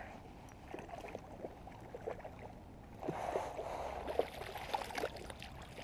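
A hooked rainbow trout splashing at the surface in shallow water near the bank, with scattered small ticks and a spell of louder splashing about three seconds in.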